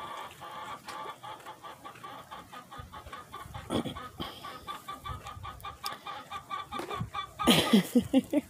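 Chickens clucking: a fast, even run of short repeated clucks, with a louder, lower, wavering animal call in several pulses near the end.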